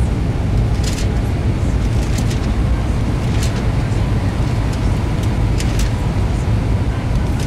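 Steady cabin noise inside an Airbus A320 airliner on approach, with the flaps extended: a loud, even, deep rumble of engines and airflow heard through the fuselage.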